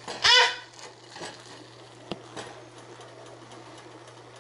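A baby's single short cry near the start, rising and falling in pitch. After it comes a steady low hum with one faint click about two seconds in.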